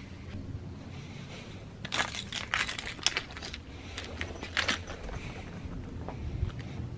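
A bunch of keys on a ring with a car key fob, jingling and clinking as it is picked up off a carpet. A run of sharp metallic clinks starts about two seconds in and lasts about three seconds.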